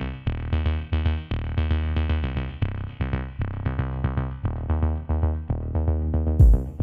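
Electronic background music: synthesizer notes over a steady drum-machine beat and bass.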